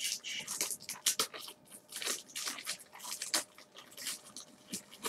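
Quick, irregular light clicks and taps, several a second, close to the microphone.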